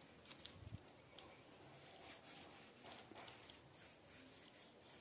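Near silence, with faint soft rustles and a few light ticks from hands handling orchid leaves.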